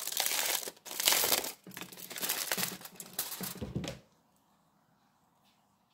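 Aluminium foil crinkling and rustling as it is unwrapped from a glass jar; it stops about four seconds in.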